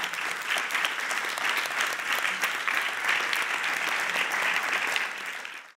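Audience applauding, a steady round of hand claps that cuts off suddenly near the end.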